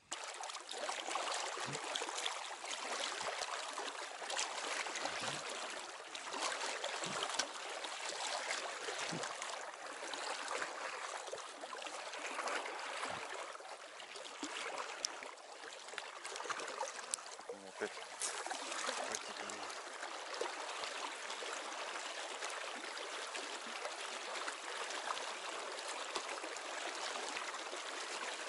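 Small river running over shallow riffles: a steady rush of flowing water, with a few soft low knocks now and then.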